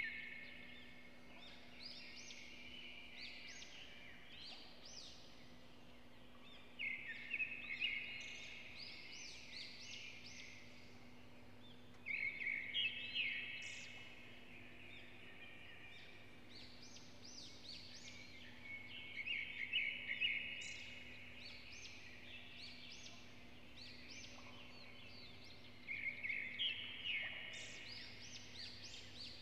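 A songbird sings the same short phrase again and again, a rapid chattering trill followed by quick rising notes, about every six or seven seconds, over a faint steady low hum.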